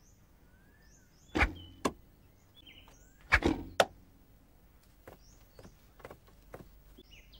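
Arrows shot from a bow and striking a target: four sharp knocks in two close pairs, the first pair about a second and a half in and the second about three and a half seconds in, with lighter knocks after. Small birds chirp in the background.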